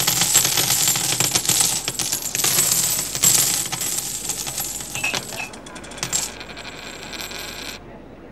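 Coins falling and jingling, a dense run of many small metallic clinks. It thins out to scattered clinks after about five and a half seconds and stops shortly before the end.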